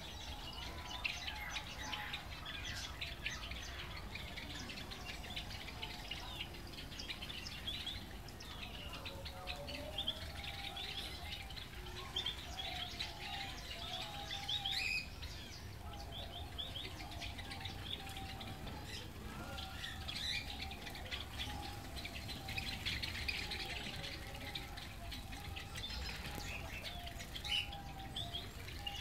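A flock of Java sparrows chirping constantly, many short high calls overlapping, over a low steady rumble.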